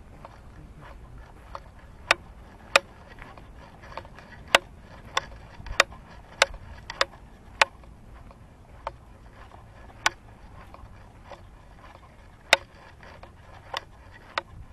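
Sharp, short clicks, most regular at about one every 0.6 s through the middle, in step with someone walking, over a low steady outdoor rumble.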